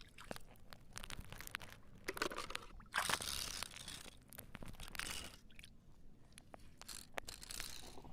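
Irregular crunching and splashing of someone wading through shallow sea water over the exposed tidal flat, with scattered clicks and several longer swishes, the strongest about three seconds in.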